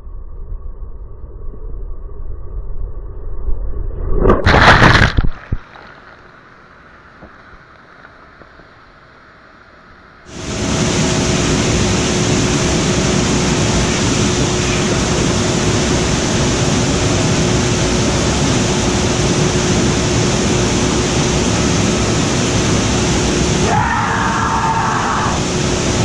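Kayak dropping over the Laussa waterfall: rushing water building over the first few seconds to a sudden loud splash about five seconds in, after which it goes much quieter. From about ten seconds in, the steady, loud rush of the waterfall heard close up from its plunge pool, cutting off sharply at the end.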